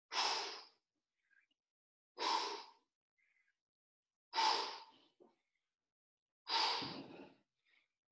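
A man breathing out hard through the mouth in rhythm with push-ups: four sharp exhalations, one about every two seconds.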